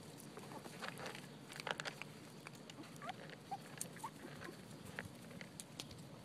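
Puppies scuffling close by and mouthing at a boot: scattered light clicks and rustles, with a few short high squeaks about three to four seconds in.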